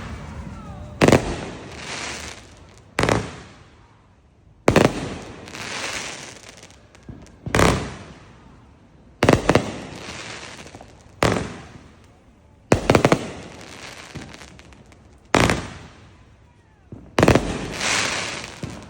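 Fireworks going off: a series of sharp bangs, roughly one every two seconds, each followed by a crackling hiss that fades away.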